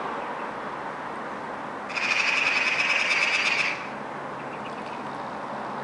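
Eurasian magpie giving a fast rattling chatter for nearly two seconds, starting about two seconds in, over steady background noise.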